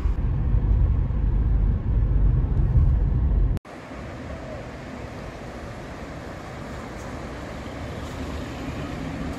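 Steady low rumble of a car's road and engine noise heard from inside while driving, cutting off abruptly about a third of the way in. A quieter, even wash of sea surf follows.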